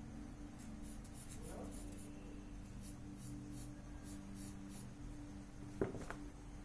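Charcoal pencil strokes scratching on drawing paper, a run of short quick scratches, with a low steady hum underneath. A sharp double click about six seconds in is the loudest sound.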